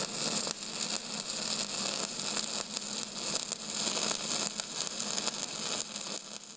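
Steady crackling hiss with a low hum underneath, fading out near the end.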